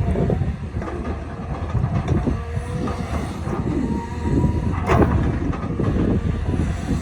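Hydraulic excavator at work: a diesel engine running under load with metallic clatter, a brief hydraulic whine twice, and a sharp metal clank about five seconds in.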